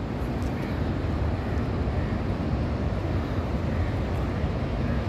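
Steady low rumble and hiss of the Indus River flowing below Taunsa Barrage, with wind buffeting the microphone.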